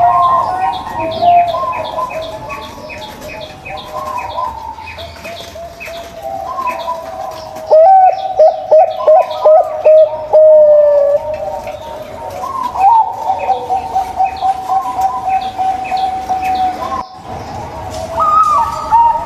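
Zebra doves (perkutut) cooing, more than one voice overlapping in wavering, fluting notes, with a run of loud short coos from about 8 to 11 seconds in. Fainter rapid high chirping runs underneath, and the sound breaks off briefly near the end.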